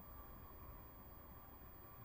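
Near silence: faint room tone with a low rumble.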